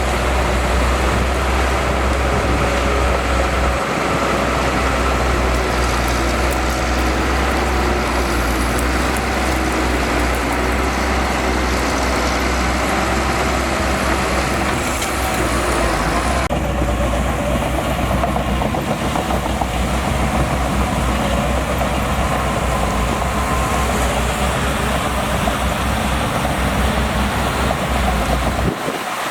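Shantui DH17C2 crawler bulldozer's diesel engine running with a loud, deep, steady rumble. Its tone changes suddenly about halfway through, and the sound dips briefly near the end.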